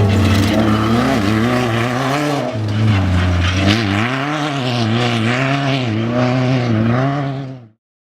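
Class 10 off-road race car engine running hard. Its pitch holds fairly steady at first, then rises and falls in a quick, regular rhythm, about one and a half swings a second. It cuts off abruptly near the end.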